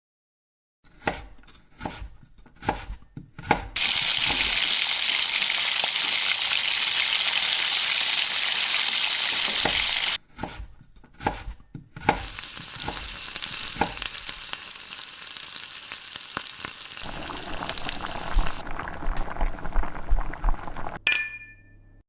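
Sliced carrot and burdock root frying in a pan: a few knocks and clatters, then a steady sizzle from about four seconds in. The sizzle breaks off briefly around ten seconds, then resumes more quietly with the clicks and scrapes of stirring until near the end.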